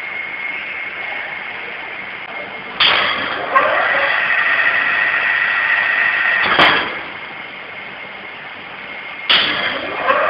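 Electric motor and steel disc of a pneumatic disc brake test rig. A rising whine starts suddenly and settles into a steady high whine. About two-thirds of the way in, a sharp click cuts in and the running sound dies away, then near the end another rising whine starts suddenly.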